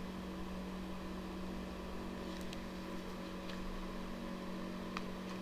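Room tone: a steady low electrical hum with faint hiss, and three faint soft clicks.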